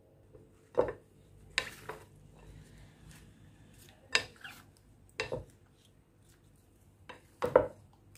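Wooden spatula stirring and tossing creamy chopped fruit in a glass bowl, with a handful of sharp knocks and clinks where it strikes the glass.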